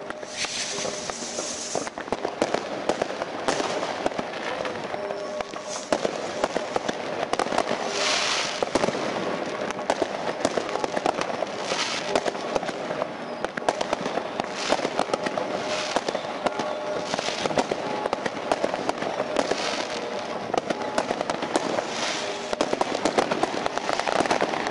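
New Year's fireworks going off all around: a dense, continuous crackle of firecrackers and bangs, with hissing bursts every few seconds.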